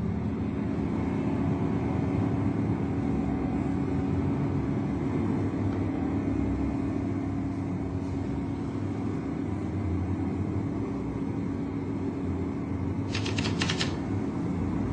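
A low, steady rumbling drone with a held tone in it. About thirteen seconds in, a quick run of sharp clicks lasts under a second.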